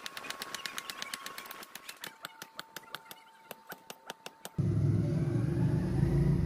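Hammer blows on red-hot steel on an anvil, fast and regular, about six a second, thinning to about three a second after two seconds in. About four and a half seconds in they stop and a loud, steady low hum takes over.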